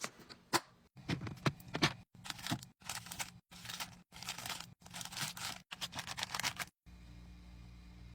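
Rustling, scraping and clicking of items being handled and set in place while a mini fridge is stocked, heard in short cut-together bursts. A low steady hum takes over near the end.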